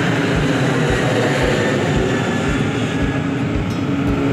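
Steady jet-engine noise from a Lion Air Boeing 737 airliner climbing out just after takeoff.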